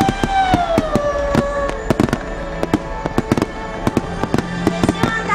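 Fireworks display with rapid bangs and crackling bursts throughout. Under them is music with a held note that slides down in pitch about a second in.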